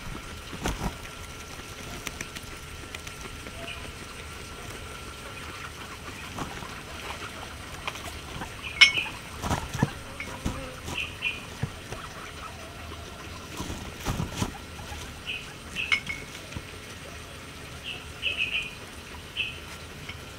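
Guinea pig chewing and tearing fresh grass: irregular crisp crunches and clicks, bunched in quick runs, with quiet stretches between.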